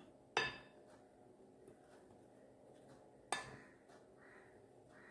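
A metal spoon clinks twice against a glass mixing bowl while stirring dry flour, each clink ringing briefly; the first comes about half a second in, the second about three seconds later.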